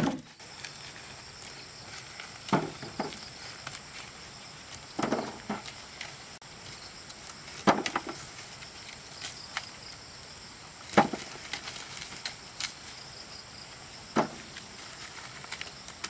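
Chopping: five separate heavy strokes, two to three seconds apart.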